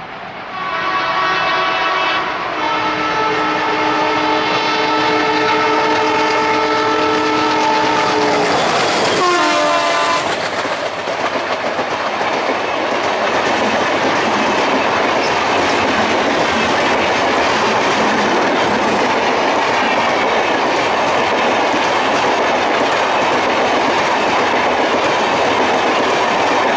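Locomotive horn sounding one long multi-tone blast as the express approaches, its chord shifting about two seconds in and its pitch dropping as the locomotive passes about nine seconds in, with a short lower blast after. Then the steady rush and clatter of LHB coaches running past at speed close by.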